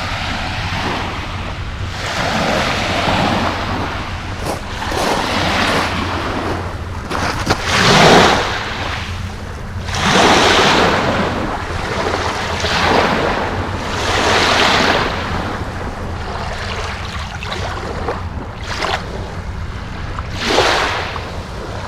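Lake Huron waves washing onto the shore, a hiss that swells and falls back every couple of seconds, with a steady low rumble of wind underneath.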